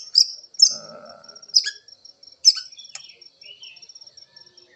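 White-rumped shama singing short, clipped phrases: sharp high notes, quick chatters and a fast ticking run, its voice still a little hoarse and not yet at full power while the bird is in molt.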